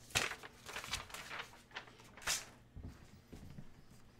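Cardboard card boxes being handled on a table: a few short scrapes and rustles, the loudest a little past halfway, then a couple of soft knocks.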